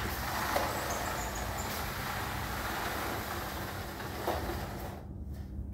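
Panels of a bi-fold glass door and its pleated insect screen sliding along their tracks, a steady rolling rumble-hiss with a small click a little after four seconds, dying away about five seconds in.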